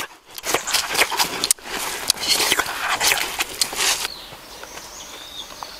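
Dense rustling and crackling for about four seconds. It then drops to a quieter outdoor background with a few faint bird chirps.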